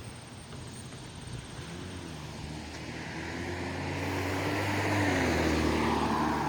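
A motor's steady low hum, growing louder as it draws nearer.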